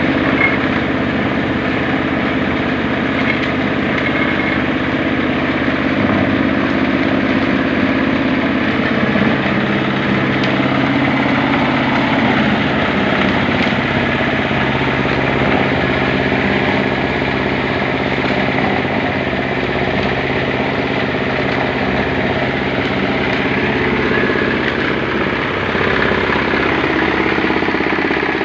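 8 hp single-cylinder diesel engine driving a cement mixer, running steadily at an even speed.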